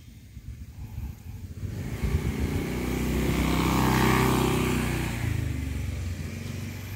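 A motorbike passes close by. Its engine sound builds from about two seconds in, is loudest near the middle, then fades away.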